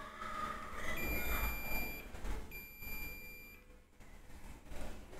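Digital multimeter's beeper in diode-test mode, two steady high beeps of about a second each, as the probes touch capacitor pads on the circuit board.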